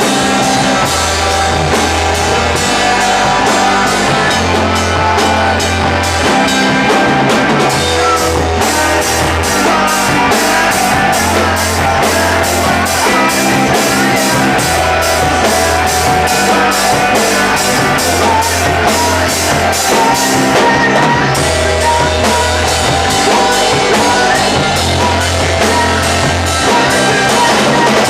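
Rock music with a drum kit keeping a steady beat over a bass line that repeats in a pattern about every two seconds.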